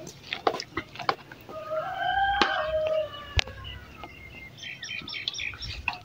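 A kitchen knife clicks and taps against a steel pot while chopping comb honey into small pieces. A rooster crows once in the background, a long call that falls slightly at the end, and small birds chirp near the end.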